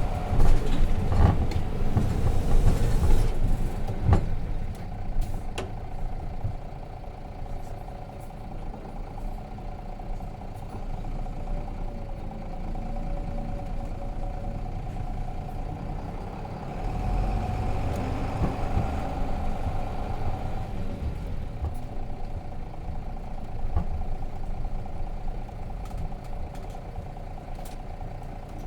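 Nissan Diesel RM bus's FE6 inline-six diesel engine running low and steady, heard from inside the cabin; louder in the first few seconds, with a brief swell about two-thirds of the way through.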